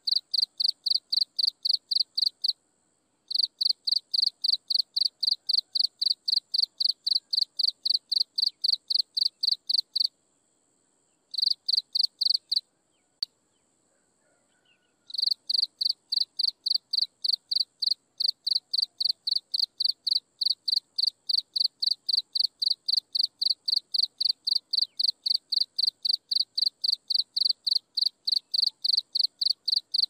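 An insect chirping in a steady rhythm, about three high-pitched chirps a second, breaking off twice, once for under a second and once for several seconds. A fainter steady high trill carries on underneath, and a single sharp click sounds in the longer pause.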